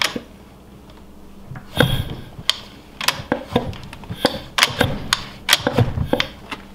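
Irregular clicking and knocking of hand tools working on a small outboard motor's fittings: a quiet first second and a half, then a run of uneven clicks and clanks.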